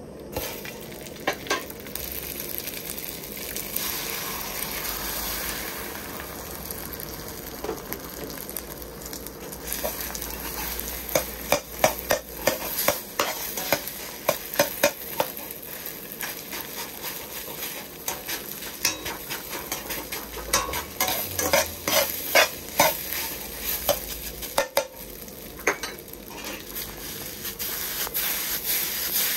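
Egg and rice frying in an oiled wok, a steady sizzle, with a metal wok ladle clacking against the pan in quick, repeated strikes from about a third of the way in as the fried rice is stirred and tossed.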